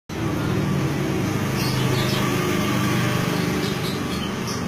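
A steady low motor hum, with a few short high chirps over it.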